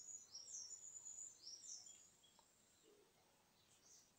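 Near silence, with faint high bird chirps repeated several times in the first two seconds.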